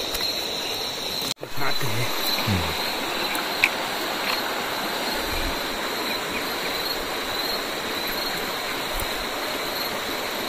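Steady rush of river water flowing over rocks, with a thin steady high tone above it.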